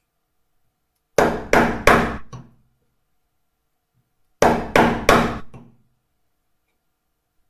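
A 25 mm wood chisel being struck on its handle and driven into laminated wood, chopping out a shallow recess a millimetre or two at a time. The blows come in two quick runs of three sharp knocks, about three seconds apart.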